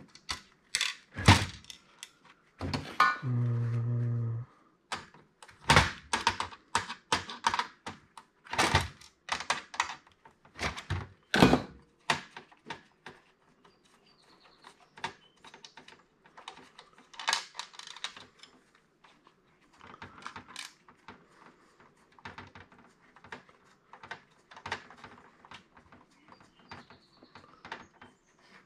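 Knocks, clunks and clatter of a POS terminal's plastic and metal housing and parts being handled and pried apart, loud and frequent for the first dozen seconds, then lighter ticking and rattling. About three seconds in, a steady buzz lasts about a second and a half.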